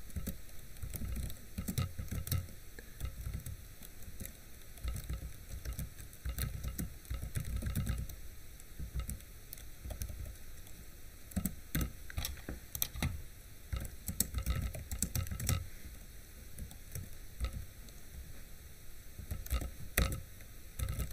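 Typing on a computer keyboard: irregular key clicks and soft thumps over a steady background hiss.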